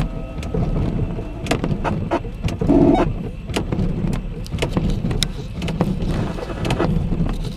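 Thunderstorm ambience: a steady low rumble with many sharp ticks of rain drops close to the microphone, and a brief pitched sound about three seconds in.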